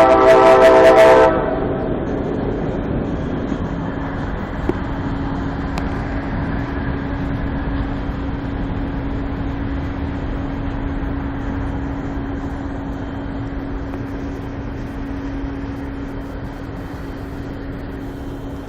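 A train horn sounds a loud chord of several notes for about a second at the start, then stops. After that a steady low hum continues over a rumbling background, easing off slightly near the end.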